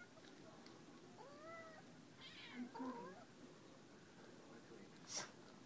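A few faint, short, high-pitched mews from a newborn sphynx kitten, each rising and falling, in the middle of the stretch; a single sharp click near the end.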